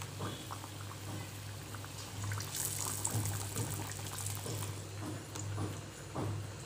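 Potato bajji, potato slices in gram-flour batter, deep-frying in hot oil in a kadai: a steady sizzle with small crackles and bubbling, brightening into a sharper hiss about two and a half seconds in.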